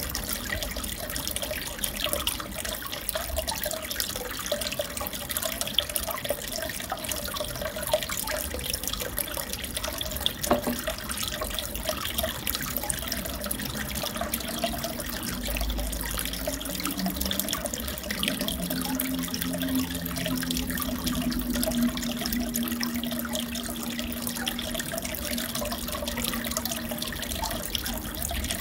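Aquarium water trickling and bubbling steadily, with many small drips and splashes.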